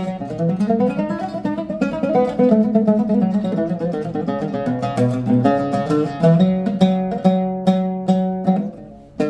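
Solo Arabic oud made by the Sabsaby workshop, picked with a plectrum in a free improvisation (taqasim). In the second half it plays a run of quickly repeated notes that dies away just before the end.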